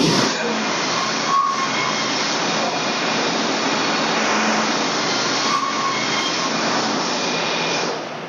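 Wood-Mizer LT35 portable band sawmill running hard, its engine and band blade making a loud steady noise as it saws pine boards, with a sharp knock at the very start. The noise drops off near the end.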